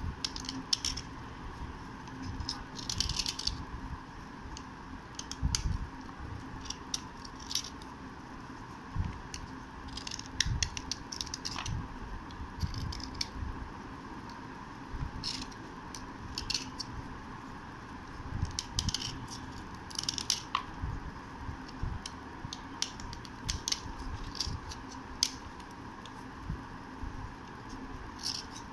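A metal blade dry-scraping the face of a soft slate triangle, shaving off flakes in short scratchy strokes, some in quick runs with pauses between.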